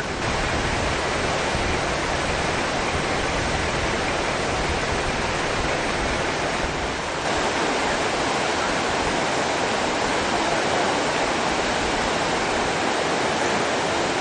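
Steady rush of fast-flowing water, with a short dip in level about seven seconds in.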